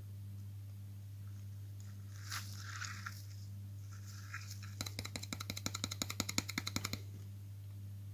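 Small plastic deli cup tapped and shaken to empty isopods and their substrate out: a soft rustle a couple of seconds in, then a rapid run of light clicks, about ten a second, for some two seconds.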